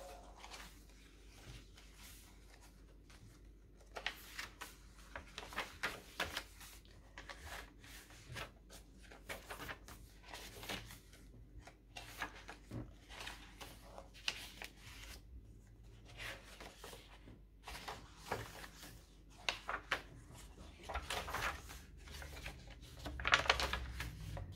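Pages of a handmade junk journal being turned and handled: a run of soft paper rustles and swishes, a few louder ones near the end.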